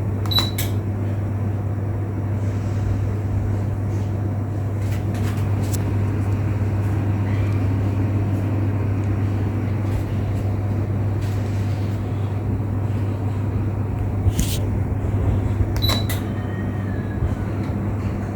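COSA RF/4S-YH ceiling fan running steadily: a low motor hum with the rush of moving air, broken by a few short clicks and two short high beeps, one at the start and one near the end.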